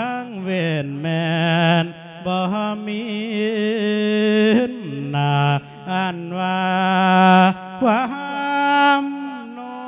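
A Thai Buddhist monk singing a lae sermon, the melismatic Isan chant for calling the spirit. He holds long, wavering notes that slide up and down between short breaths.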